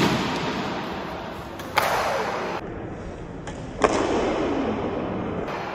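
Badminton rackets striking the shuttlecock in a rally, sharp cracks about two seconds apart, each ringing out in the echo of a large sports hall.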